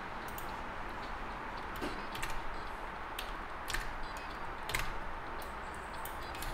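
Scattered light clicks from computer controls, about one a second and irregular, as an image is edited, over a steady background hiss.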